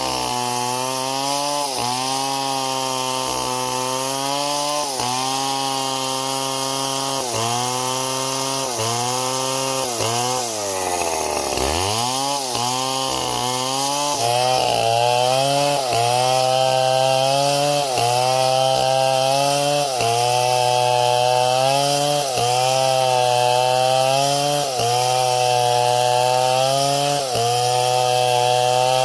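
Engine of a wood-cutting saw running hard under load in wood. Its pitch sags and recovers about once a second, and near the middle it bogs down almost to a stall before revving back up.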